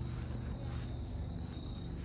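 Crickets trilling steadily at one high pitch, over a low rumble.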